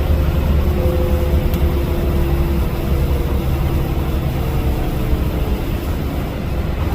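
Steady engine and road noise inside a semi-truck's cab while driving, a deep low rumble with a faint hum over it.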